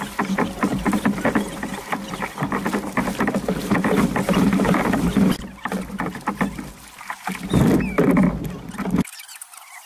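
Kayak paddles dipping and splashing, with water washing along the tandem kayak's hull in a dense, irregular run of splashes. The sound drops away abruptly near the end.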